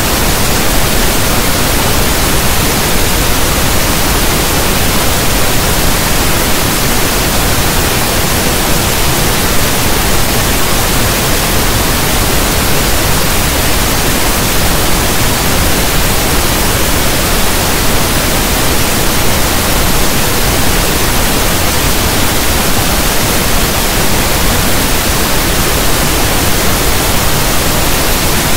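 Steady synthetic pink noise, a hiss like static from a radio not tuned to a station.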